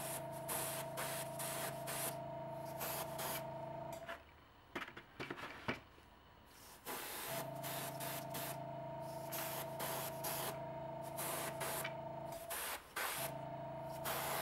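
Airbrush spraying thinned paint in short, quick hissing passes over the steady hum of its compressor. The hum stops about four seconds in, comes back about three seconds later, and drops out briefly near the end.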